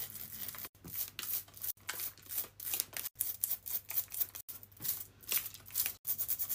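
Long acrylic fingernails scratching and raking over rhinestones glued to skin: quick, crisp scratching strokes several times a second, broken by a few abrupt cuts, over a faint low hum.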